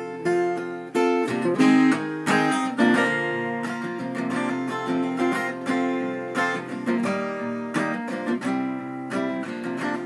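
Acoustic guitar, capoed, strummed in a steady chord pattern with no singing.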